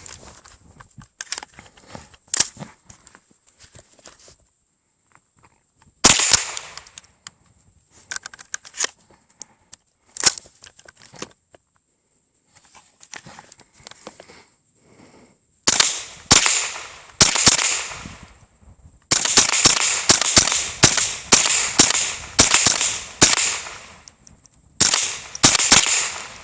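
Sharp .22 LR gunshots from an AR-15 fitted with a .22 conversion kit, each with a short ringing tail. A single shot comes about six seconds in and another near ten seconds, then a string of shots from about sixteen seconds quickens to roughly two a second before two more near the end.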